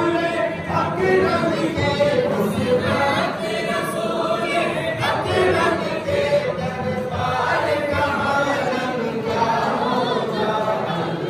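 A group of men chanting together in a devotional chant, many voices overlapping without a break.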